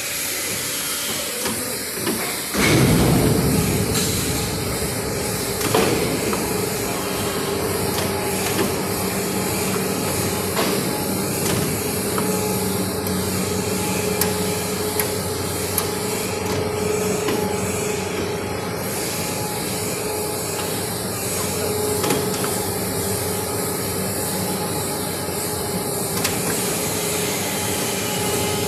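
3-axis CNC pipe bending machine starting up about two and a half seconds in, then running with a steady hum, with a few clanks of metal.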